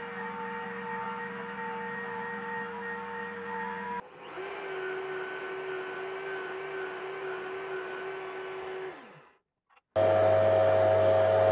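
Machine tools cutting metal, one after another: a milling machine's steady spindle whine; then, about four seconds in, a drill press running steadily that winds down and stops; then, after a brief silence, a metal lathe turning a part, the loudest of the three, with a strong steady tone and hum.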